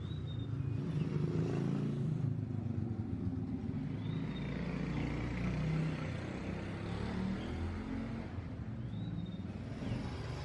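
Steady low rumble of motor vehicles, the loudest sound throughout. Over it come three faint, short, falling bird whistles, spaced four to five seconds apart.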